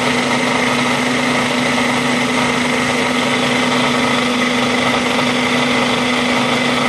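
Ninja blender motor running steadily with an even whine, pureeing roasted peanuts, dried chiles de árbol, garlic and water into a smooth sauce.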